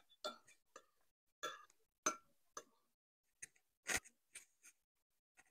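Metal cutlery clinking and scraping against ceramic bowls in irregular short strokes, about a dozen light clinks, the loudest about four seconds in.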